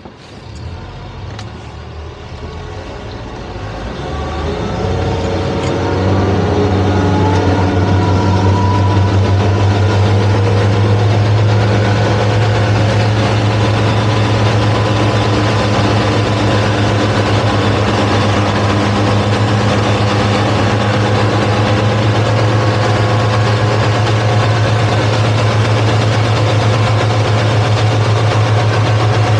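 Towboat's twin outboard engines coming up in power over the first six seconds, then running steadily under tow load with a deep, even hum. The two engines' RPMs aren't synced, which makes them sound weird.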